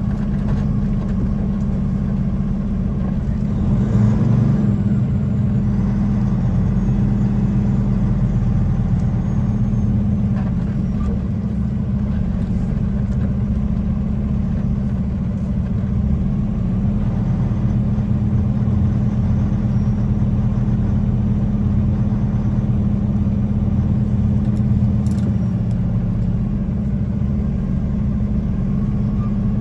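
Semi truck's diesel engine running at low speed, heard from inside the cab: a steady low hum that swells briefly about four seconds in.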